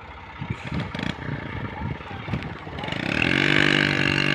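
Motorcycle cart's small engine working in soft sand. It thuds unevenly at first, then from about three seconds in settles into a loud, steady drone as it pulls the loaded cart while it is pushed free.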